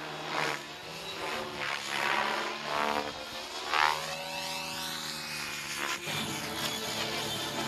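Radio-controlled helicopter flying aerobatics: the rotor and motor whine and buzz, rising and falling in pitch as it manoeuvres and sweeps past.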